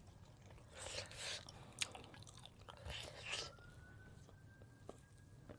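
Close-miked eating sounds: chewing and mouth noises in a few short bursts, with one sharp click about two seconds in.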